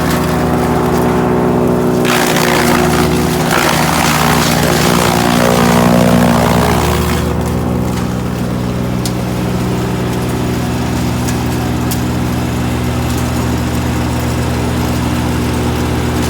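GreenMech Arborist 150 wood chipper's engine running steadily at speed. From about two to seven seconds in, a rougher, noisier sound rides on top of it, then fades back to the engine alone.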